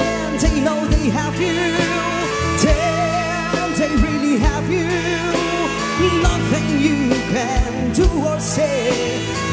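Live pop band playing a song: a lead vocal with vibrato over bass, keyboard and a drum kit with a steady kick drum.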